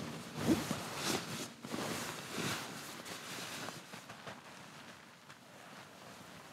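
Tent fabric rustling and swishing as it is handled, with a few loud swishes in the first three seconds and quieter rustling after.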